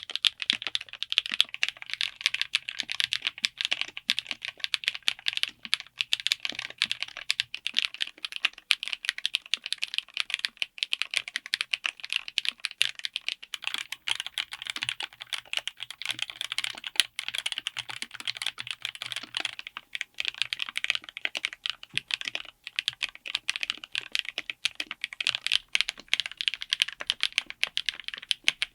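Continuous fast typing on a full mechanical keyboard fitted with linear switches, a dense run of sharp keystroke clacks. The sound changes slightly about halfway through.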